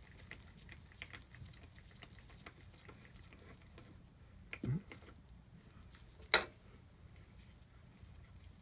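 Light scattered clicks and taps from gloved hands handling a Fieldpiece SM480V refrigerant manifold and turning its valve knobs, as the reassembled valves are checked. A sharp click a little past the middle is the loudest sound.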